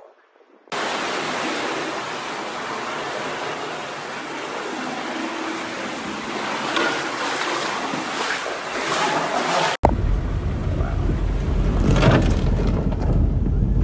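Floodwater rushing and splashing, a loud steady rush of water noise that cuts off suddenly near ten seconds in. It gives way to heavy rain with a deep low rumble as cars wade through a flooded road.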